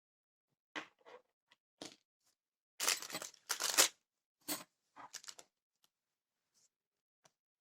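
Adhesive hooks and their packaging being handled: a string of short rustling noises, the loudest about three to four seconds in, then it stops.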